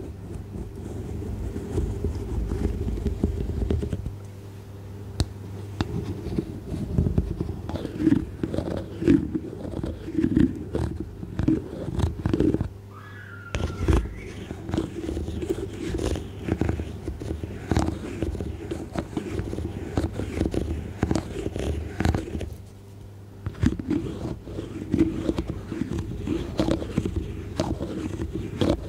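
Close-miked ASMR trigger noises: irregular scratching and rubbing with many small clicks, broken by a few short pauses.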